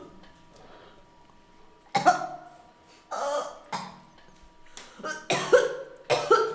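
A person's voice in about five short, harsh bursts, starting about two seconds in and loudest near the end.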